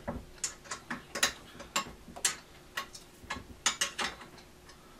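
Ratchet wrench clicking in short, irregular strokes as bolts on a theater seat's metal mounting bracket are tightened; the clicks stop about four seconds in.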